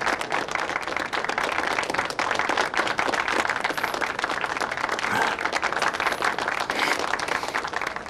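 Audience applauding: many hands clapping at once, steadily.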